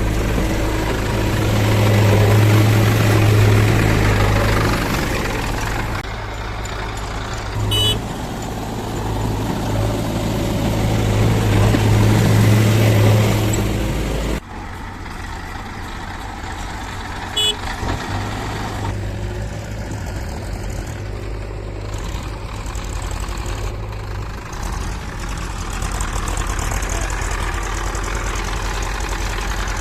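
Diesel engine of a JCB 3DX backhoe loader running and working harder in two long stretches, with a couple of short sharp clanks. About halfway the sound drops abruptly to a quieter, steady engine running.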